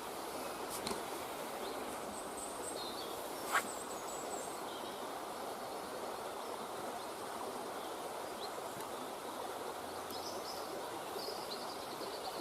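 Steady outdoor background noise with a few faint bird chirps, and a single sharp click about three and a half seconds in.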